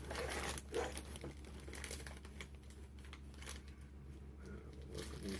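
Packaging crinkling and rustling as it is handled, with scattered small clicks and crackles.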